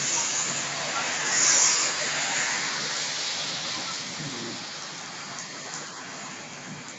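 Heavy rain pouring onto a flooded road, with a car's tyres hissing through the standing water, loudest about a second and a half in. The rain's hiss then slowly eases.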